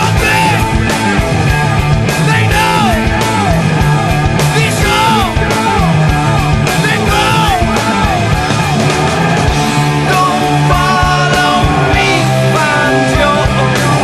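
Rock band playing: steady drums and a strong bass line under a lead line of repeated rising-and-falling bent notes, giving way to held notes near the end.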